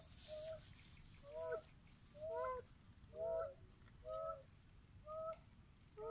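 An animal calling in a steady series: about seven short, clear, honk-like calls, roughly one a second, each with two close notes.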